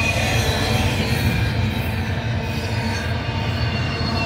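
Double-stack container well cars of a freight train rolling past: a steady low rumble of steel wheels on rail, with faint thin high-pitched wheel squeal over it.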